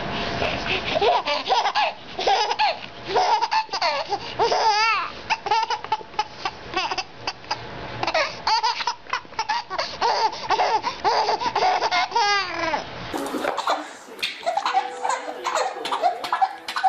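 A baby laughing hard in repeated bursts of belly laughs and squealing giggles. About 13 seconds in, the sound switches to a second baby laughing in the same way.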